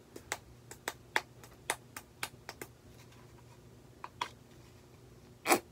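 Small plastic bottle of blue craft paint being shaken by hand, giving a quick run of sharp clicks about four a second, then a few single clicks, the loudest near the end.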